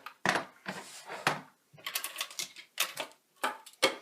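Packaging and parts of an unboxed toy quadcopter being handled and moved about: an irregular run of sharp clicks, taps and short rustles.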